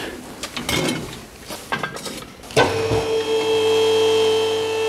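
Metal knocks and clatter as the lift arms are swung and their pads set under the car, then about two and a half seconds in the two-post car lift's electric motor starts and runs with a steady hum, raising the car.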